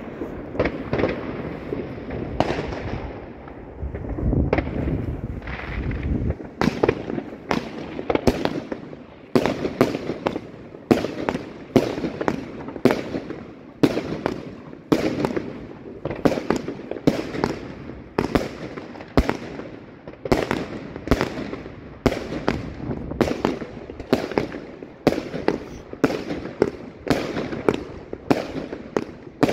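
Evolution Fireworks Mayhem 150-shot firework cake firing, one shot after another, about one to two a second. Each shot is a sharp bang in the air.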